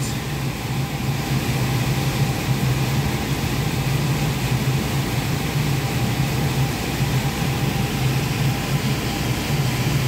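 Liebert (Vertiv) precision air-conditioning unit running: a steady mechanical hum of its fans and compressor, with a low drone that wavers in strength.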